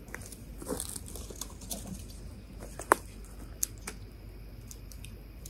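A freshly lit campfire of dry kindling crackling, with scattered sharp pops; the loudest pop comes a little under three seconds in.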